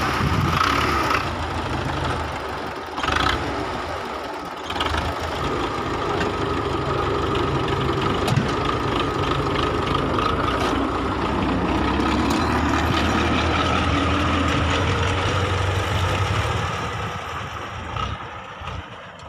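Diesel tractor engines running steadily under load as one tractor tows a second tractor and its loaded trolley out of a rut. The engine sound fades near the end.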